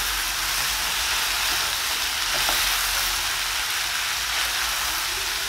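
Minced meat, onions, potatoes and fresh tomatoes sizzling steadily in a frying pan while being stirred with a wooden spoon.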